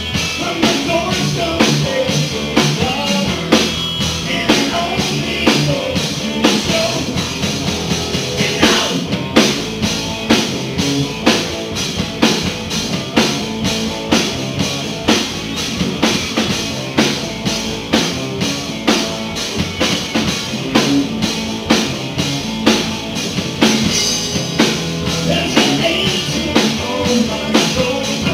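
Live blues-rock band playing: electric guitars, bass and a drum kit keeping a steady beat, with a harmonica played into a vocal microphone.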